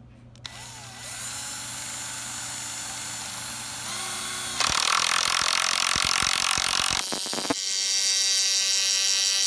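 Milwaukee M12 cordless impact driver driving a lag screw into pressure-treated lumber. It runs steadily at first, then about halfway through gets much louder as the screw bites and the driver starts hammering it home.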